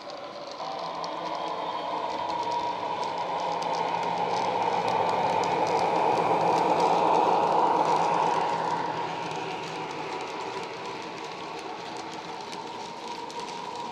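Hornby OO gauge Class 60 model locomotive's Howes diesel sound file playing through an EM1 speaker and a 24x30 bass-enhanced speaker: the engine note grows louder as the loco approaches, peaks about seven seconds in as it passes, then fades.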